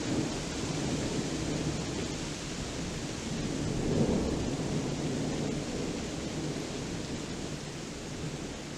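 Thunder rolling and rumbling low over a steady hiss of rain, swelling to its loudest about halfway through.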